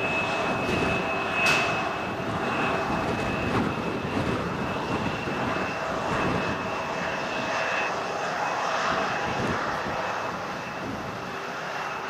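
Antonov An-124 Ruslan's four Progress D-18T turbofan engines in flight after take-off: steady jet noise with a high whine held on one pitch, easing a little near the end.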